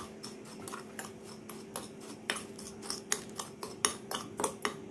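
A metal spoon clinking and scraping against a glass bowl while ground spice powders are stirred together, as irregular light clicks several times a second. A faint steady hum runs underneath.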